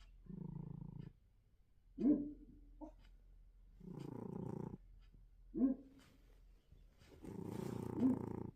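A domestic cat snoring in its sleep. There are three long, rough snores about three and a half seconds apart, with shorter, louder, higher-pitched snorts between and over them.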